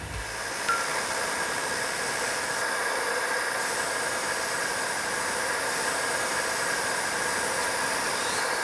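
A simple motor-driven stone saw running steadily while cutting lapis lazuli: an even hissing whir with a faint steady whine.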